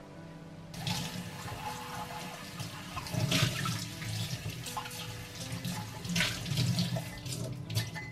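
Tap water running into a stainless steel sink and splashing over a ceramic mug as it is washed by hand. It starts suddenly about a second in and carries a few louder splashes, over soft background music.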